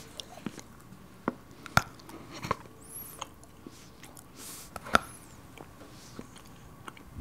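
A person chewing a mouthful of solid chocolate, with irregular soft clicks and smacks of the mouth; one sharper click about five seconds in.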